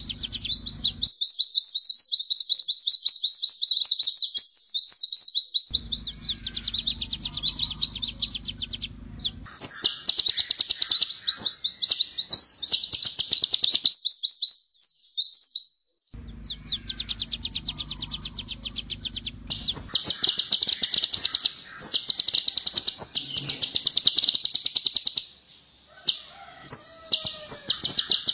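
Kolibri ninja (purple-throated sunbird) singing: long bursts of very fast, high-pitched chattering trills, broken by short pauses.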